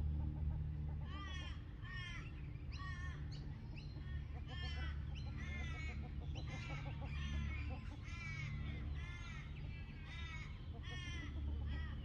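A flock of Australian wood ducks calling: a run of short, nasal, drawn-out calls repeated about one to two times a second, starting about a second in, over a steady low rumble.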